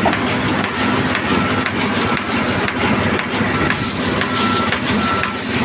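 Heavy vehicle or lifting machinery running steadily, with a short warning beep repeating about every three quarters of a second, typical of a reversing or motion alarm.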